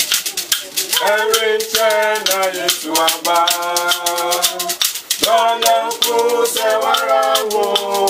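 A small group singing a song with held notes, coming in about a second in, over hand rattles, among them a beaded gourd rattle, shaken to a steady beat.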